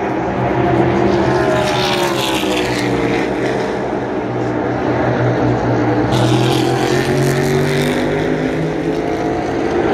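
A pack of NASCAR Cup Series stock cars running flat out around the speedway, their V8 engines a continuous drone. The pitch falls over a couple of seconds as one group passes, then rises again from about halfway through as the next group comes on.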